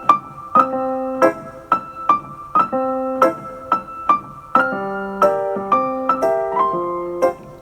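Background music: piano playing a gentle repeating chord pattern, about two chords a second.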